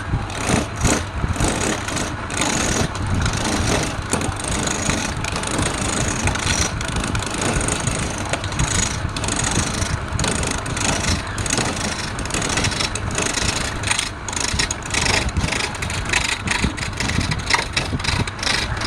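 Wood lathe running steadily, with an uneven rasping texture that fits a tool cutting the spinning wood.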